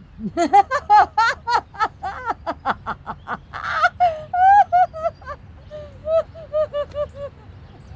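A woman laughing loudly: a long run of quick 'ha' pulses, with a breathy gasp about halfway through, then slower, falling laughs that die away near the end.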